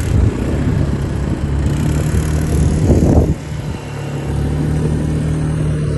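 Quad ATV engine running as a steady drone, swelling louder about three seconds in and dropping back sharply, then holding steady again.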